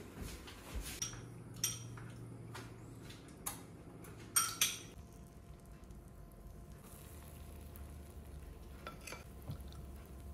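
A metal spoon clinking and scraping against a bowl as cupcake batter is scooped, with a few sharp clinks, two of them close together about halfway through, and a last one near the end.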